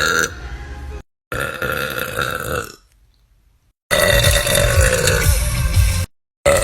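Women burping loudly, several separate burps cut back to back. One long pitched belch fades out about a second in, another runs to near the halfway mark, and after a short quiet spell a loud, long, deep belch runs from about four to six seconds.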